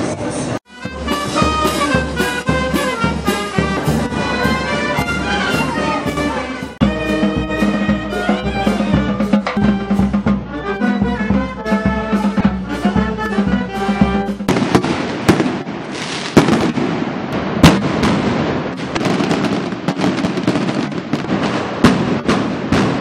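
A street band of clarinets and brass instruments playing, changing abruptly to another passage about seven seconds in. From about fourteen seconds a rapid barrage of firecrackers goes off, with sharp bangs one after another.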